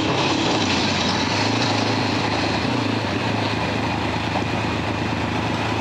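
Motorcycle engine running at a steady speed while riding a dirt road, a constant low hum under an even rushing noise.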